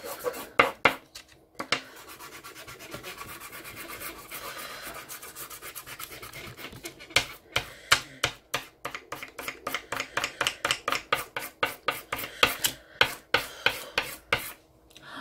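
Black soft pastel stick scrubbed hard back and forth on paper: a scratchy rubbing, steadier at first, then quick separate strokes about three a second in the second half. The pastel is being pressed hard to lay down solid black.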